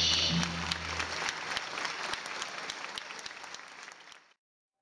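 Audience applauding, with the band's last held chord dying away in the first second. The clapping fades out and cuts to silence near the end.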